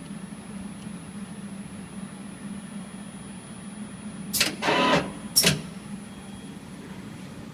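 Weiler DZ26 CNC lathe running with a steady hum. About four and a half seconds in comes a sharp click, then a brief harsh burst of noise, then another sharp click a second later.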